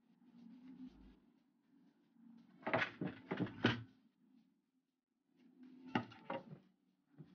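Bucktail and scissors handled on the fly-tying bench: soft rustling with a quick run of three or four sharp clicks about three seconds in and two more about six seconds in.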